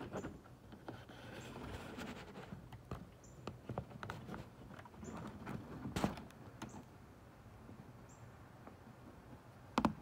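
Northern cardinal giving short, high chip notes about every second and a half, over scattered rustling and knocks, the loudest knocks about six seconds in and just before the end.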